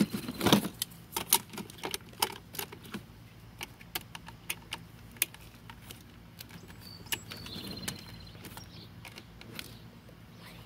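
Hard plastic clicks and taps from an RC toy's battery compartment as the battery pack is pressed in and the cover is fitted and screwed shut with a small screwdriver. The clicks come irregularly, thickest in the first few seconds and sparser after.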